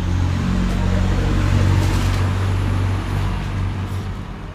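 A road vehicle passing close by: its rumble and tyre noise build to a peak about a second and a half in, then fade away.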